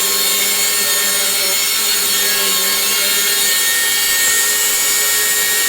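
Vacuum cleaner motor running with a very loud, steady, harsh noise and a high whine. The owner complains that it makes this racket without picking anything up.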